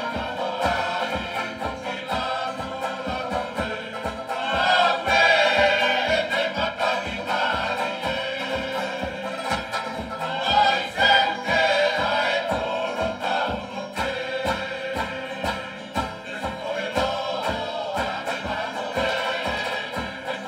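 Group of Tongan singers in chorus accompanying a tau'olunga dance, over a steady strummed beat from banjo and other string instruments. The singing swells louder twice.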